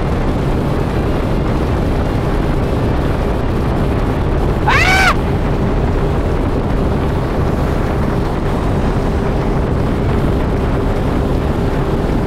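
150-horsepower two-stroke Mercury outboard running steadily near the boat's top speed of about 35 mph, under heavy wind noise on the microphone. About five seconds in, a short high tone rises and falls.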